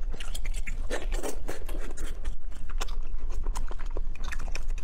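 Close-miked eating sounds: rapid, irregular wet clicks and smacking from chewing shellfish, with the crackle of prawn shells being handled and peeled in oily sauce.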